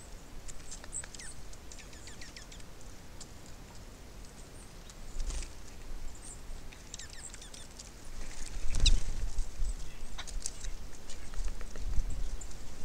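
Small birds at a feeder: quick pecking and scrabbling taps on the feeder, with a few short high chirps. About two-thirds of the way in, a low buffeting rumble rises underneath.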